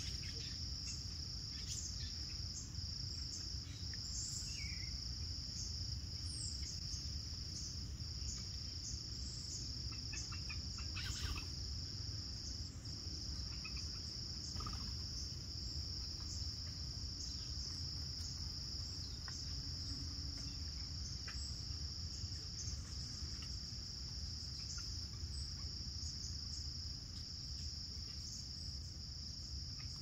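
A chorus of insects trilling in one steady, high continuous tone, broken only by a few very short gaps, over a low, even background rumble. A few faint short chirps come through, one a small falling call about four and a half seconds in.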